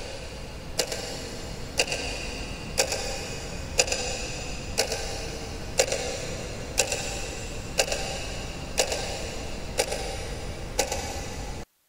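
Quartz wall clock ticking once a second, each tick sharp and even, over a steady low background noise that grows slightly louder. The sound cuts off abruptly near the end.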